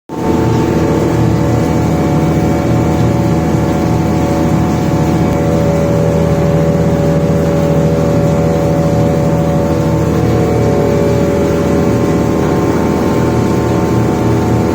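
Diamond wire saw rig running steadily while cutting through thick reinforced concrete: a loud, even machine hum with several steady tones.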